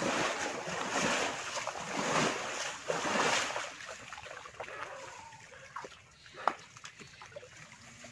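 Pond water splashing heavily as men wading in it haul a fishing net, for about three and a half seconds, then lighter sloshing with one sharp smack about six and a half seconds in.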